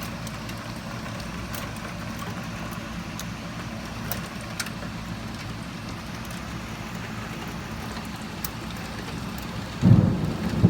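Steady heavy rain from a summer thunderstorm, with scattered drips ticking. About ten seconds in, thunder breaks in as a sudden loud low rumble.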